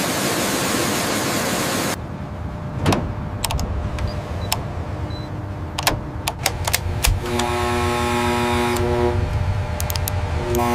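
A steady hiss that cuts off about two seconds in, then a low machinery rumble with scattered sharp clicks of control-panel buttons being pressed. About seven seconds in, a steady electronic tone of several pitches sounds for a second and a half, and comes back near the end.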